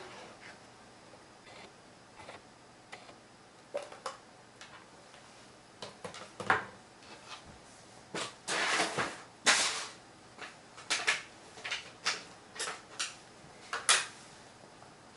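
Rustling and scattered light knocks as a sheet of gold faux leather is handled and pressed down by hand onto glued cardboard, with a longer rustle about two thirds of the way through.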